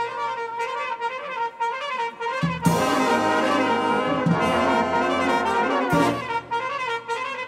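Brass band of cornets, euphoniums and tubas playing a piece together. A lighter passage gives way about two and a half seconds in to the full band with the tubas' bass, which drops back to the lighter texture about six seconds in.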